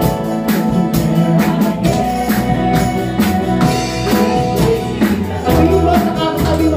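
Live church praise band playing an upbeat worship song on drum kit, electric bass and guitars, with singers and the congregation singing along over a steady drum beat.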